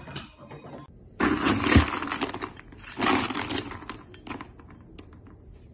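Dry dog kibble rattling and clattering in a metal scoop over a plastic bin of food, in two bursts about two seconds apart, then a few scattered ticks.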